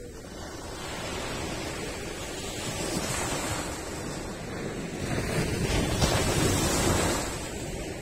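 Small ocean waves breaking and washing up a sandy beach, a steady rush that swells to its loudest about three-quarters of the way through, then falls away.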